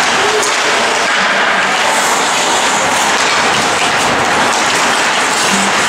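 Loud, steady rushing noise of an ice hockey rink during play, with no single event standing out.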